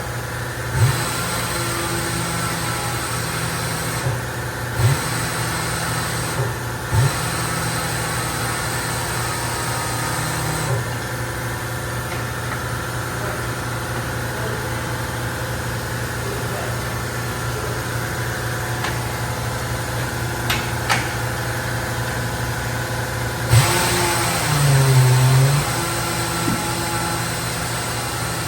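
An engine running steadily at idle, with a few short knocks.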